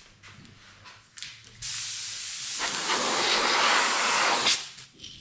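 Airbrush air hissing for about three seconds, beginning about a second and a half in and turning louder and fuller about a second later. Air is being blown back into the airbrush's white paint bottle to bubble and mix paint that has sat unused, before spraying.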